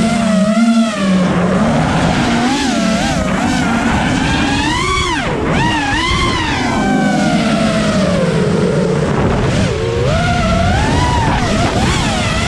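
FPV freestyle quadcopter's brushless motors whining, the pitch swinging sharply up and down every second or so as the throttle is punched and cut.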